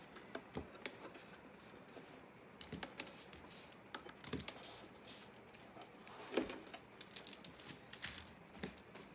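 Scattered light clicks and clacks of spool clamps with wing nuts being loosened, pulled off a mandolin body and set down on a workbench, at irregular intervals, the loudest about six and a half seconds in.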